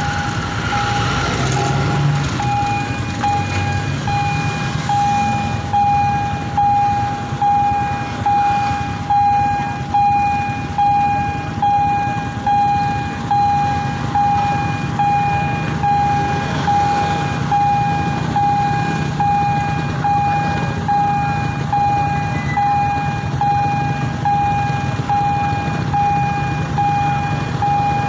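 Railway level-crossing warning bell ringing in an even, repeating ding about once a second, the signal that a train is approaching or passing. A steady low hum runs underneath.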